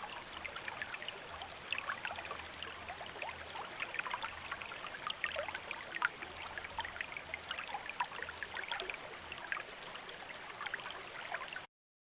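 Gently running water trickling and splashing, with many small bright splashes over a steady wash; it cuts off suddenly near the end.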